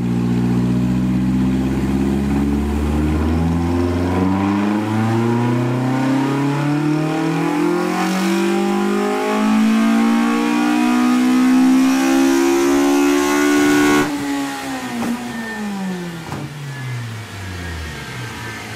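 Toyota AE86's 4A-GE four-cylinder with individual throttle bodies, carrying a ported small-port head and Kelford 193C cams, making a full-throttle dyno pull. The engine note climbs steadily in pitch and grows louder for about fourteen seconds, then the throttle is lifted and the revs fall away.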